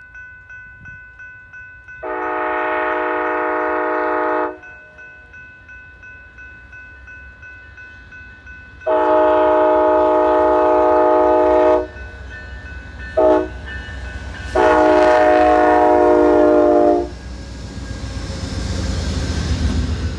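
Locomotive horn sounding the long, long, short, long grade-crossing signal, with a crossing bell ringing underneath. A low rumble of the train builds near the end as it approaches.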